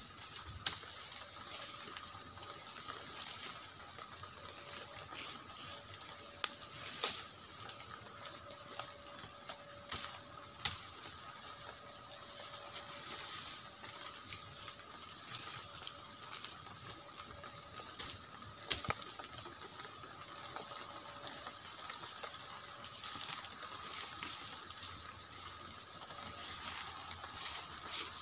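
Rustling and snapping of leaves and twigs as a person pushes through and grabs at dense undergrowth, with scattered sharp cracks, a few of them loud. Under it runs a steady faint high hum.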